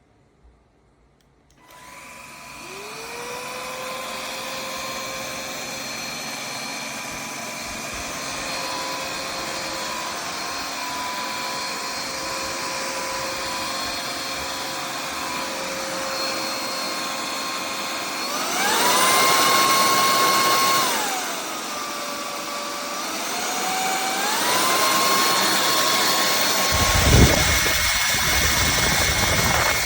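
MIUZZY cordless stick vacuum's motor switching on and spinning up to a steady whine. Past the middle its pitch shoots up sharply, drops back, then climbs again in two steps to a high whine. A brief low bump comes near the end.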